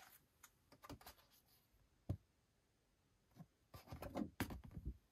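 Stiff printed card backdrops of a magnetic play set being handled and shuffled over its plastic carrying case, with faint rustling and light taps. There is one sharp tap about two seconds in and a cluster of rustles and taps near the end.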